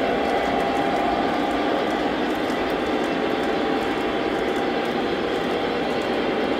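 Model passenger train rolling steadily along the layout's track: a continuous, even running noise of wheels on rails and motors, with faint steady tones in it.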